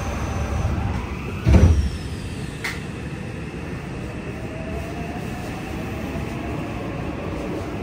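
Yokohama Blue Line 3000R subway train heard from inside the car while running through a tunnel: steady rumble of wheels and motors, with a loud thump about a second and a half in and a sharp click a second later. A faint motor-inverter tone rises in pitch through the second half.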